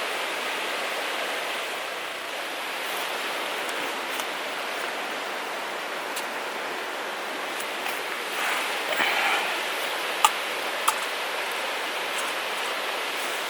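Steady rushing noise like flowing water. About two-thirds of the way through comes a brief swell of rustling, then two sharp clicks half a second apart.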